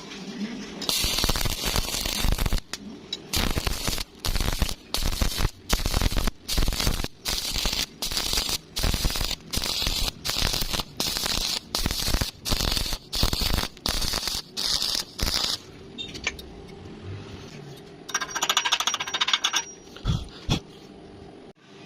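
Electric arc welding on steel reinforcing bar: the arc crackles in short bursts about twice a second, breaking off briefly between each. A shorter, steadier buzzing burst of welding follows near the end.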